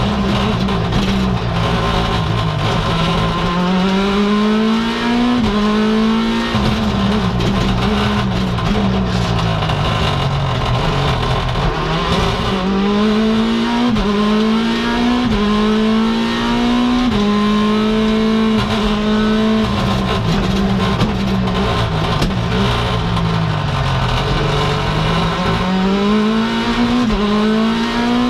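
Mini John Cooper Works WRC's turbocharged 1.6-litre four-cylinder engine heard from inside the cockpit, revving hard and climbing in pitch through quick upshifts, with the revs falling away a couple of times under braking and downshifts before rising again.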